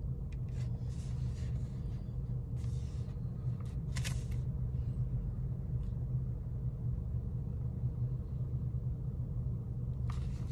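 Steady low rumble of a car, heard from inside its cabin. A few soft rustles sit over it, with a brief sharper one about four seconds in.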